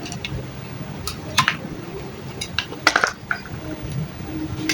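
Scattered small clicks and clinks of the air mattress pump's plastic casing and parts being handled as it is taken apart, over a low steady hum.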